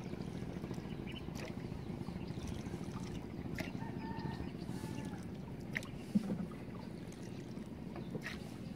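Small boat under way on a river, giving a steady low rumble. Faint bird calls come in around the middle, and there are a couple of light knocks a little past the middle.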